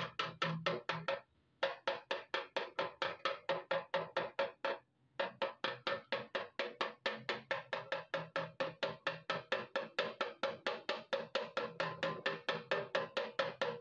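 Rapid, even hammer taps on a Honda CD 70's steel fuel tank, about six a second, over a steady ringing note, as a dent is tapped out. The tapping breaks off twice for a moment.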